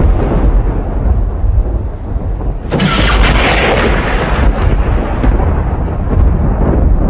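Thunder rumbling low and loud, with a sharper crack breaking in nearly three seconds in that dies back into the rolling rumble over the next second or two.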